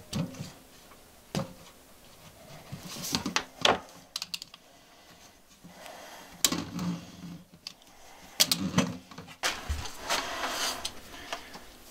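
Corrugated plastic hose being cut with a knife and handled: irregular clicks, crackles and scrapes as the blade works through the ribs and the hose is flexed.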